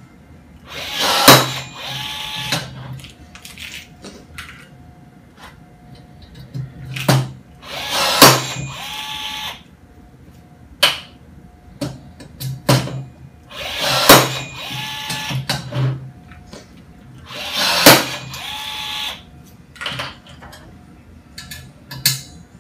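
Cordless rivet gun setting blind rivets in a metal frame, about four times: each time a short motor whir and a sharp snap as the rivet's mandrel breaks. Softer clicks come between, from rivets and the tool's nose meeting the metal.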